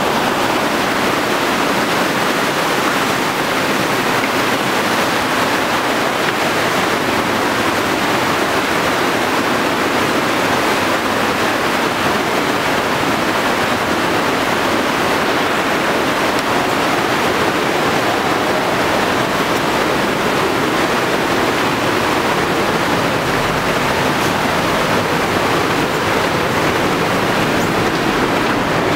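Mountain torrent rushing and churning white through a narrow rock gorge: a loud, steady rush of water.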